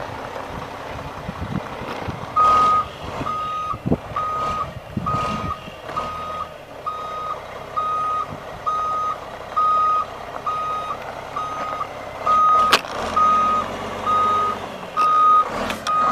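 Backup alarm on a 2005 Mack Granite oilfield winch truck beeping steadily at one pitch, about once a second, starting a couple of seconds in as the truck reverses, over the low running of its diesel engine. A single sharp click sounds near the end.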